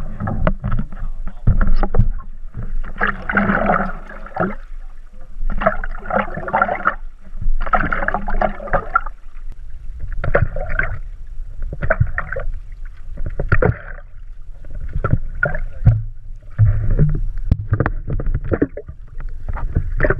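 Outrigger canoe paddle strokes heard from a camera mounted on the paddle: a splash and rush of water each time the blade dips and pulls, roughly every two seconds. Under it runs a low rumble of handling noise, with sharp knocks between strokes.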